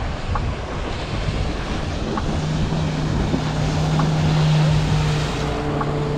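Water slapping and wind buffeting a microphone held at the water's surface, with a motorboat's engine drone coming in about two seconds in and growing loudest as the boat speeds past.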